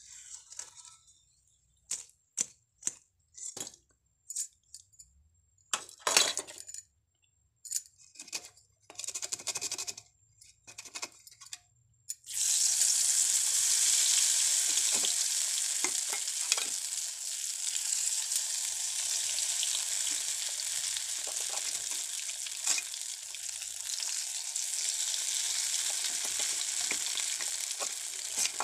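Scattered clinks and knocks of kitchen utensils. About twelve seconds in, a loud, steady sizzle starts suddenly as food hits a hot pan and keeps frying.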